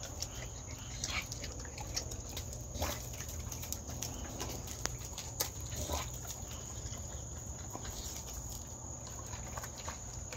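A dog eating dry kibble from a stainless-steel bowl: irregular crunching and small clicks of kibble against the bowl, with short pauses.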